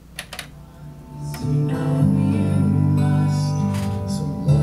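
Cassette deck of a JVC PC-X560 boombox: the play key clicks twice as it engages, then a music tape starts playing through the unit's speakers, fading up within about a second. The tape mechanism works.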